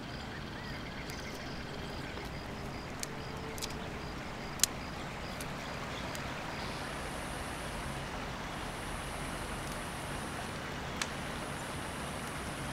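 Steady low rumble of distant traffic with a few sharp snaps, the loudest about a third of the way in. From about halfway, a high hissing trill comes and goes in stretches of a second or two.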